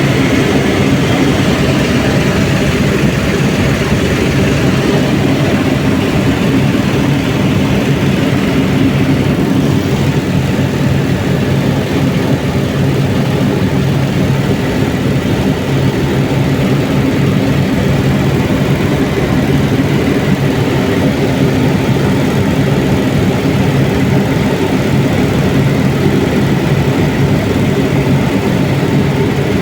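Helicopter engine and rotor running with a loud, steady drone and a constant low hum.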